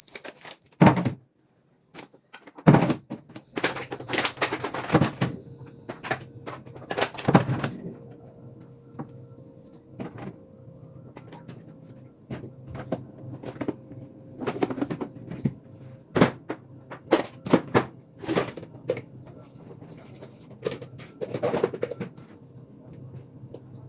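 Household cleaning sounds: irregular knocks and clatters of objects being handled and set down, over a low steady hum.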